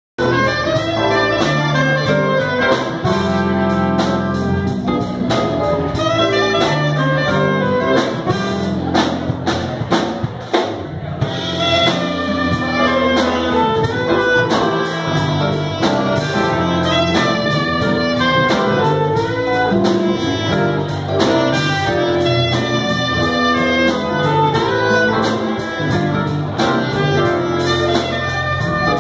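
Live jazz band playing: saxophone over electric keyboard, a low bass line and a drum kit keeping time with regular cymbal strokes.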